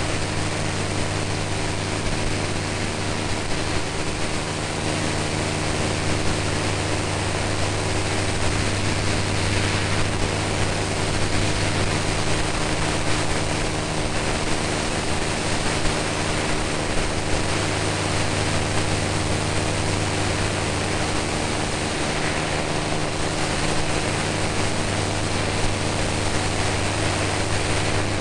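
Propeller airplane's piston engine running steadily in the climb after take-off, its drone holding one pitch throughout over a continuous rush of wind and air noise.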